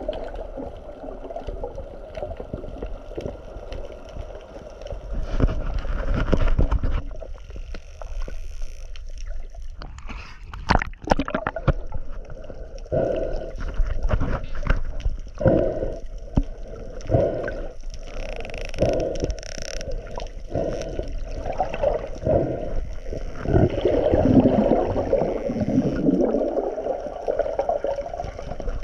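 Water gurgling and sloshing, with irregular short splashes about once a second through much of it.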